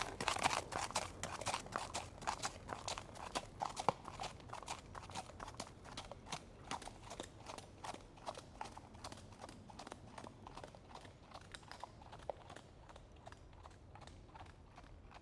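Horse hooves clip-clopping in a quick, irregular run of hoofbeats that grows steadily fainter, as if moving away.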